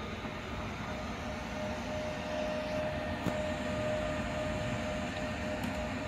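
Steady mechanical hum with a thin, steady whine that comes in about a second in, and a light click about three seconds in.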